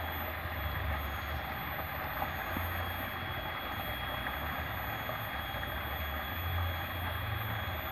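Steady outdoor background noise: an even hiss with a low rumble that swells and fades a few times, and no distinct event.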